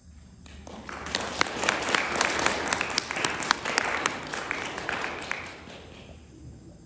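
Audience applauding: the clapping builds within the first second, holds for several seconds, and dies away near the end.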